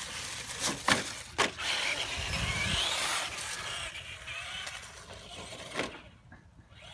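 Two sharp knocks about a second in, then a Traxxas Slash RC truck's electric motor whining along with its tyres hissing on concrete as it speeds away, the whine rising in pitch and then fading.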